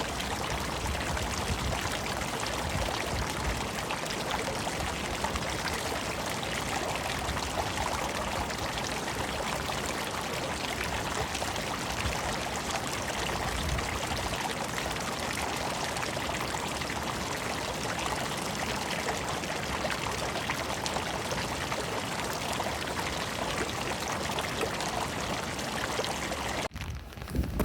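Running water, a steady even rush like a stream or cascade, which breaks off abruptly near the end.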